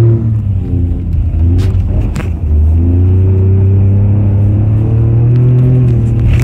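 Toyota GR Corolla's turbocharged three-cylinder engine pulling under load while being driven. The revs drop sharply just after the start and again at the end, like gear changes, and climb slowly and steadily in between.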